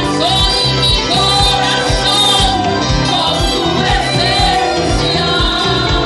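Christian worship song with sung vocals over a steady beat.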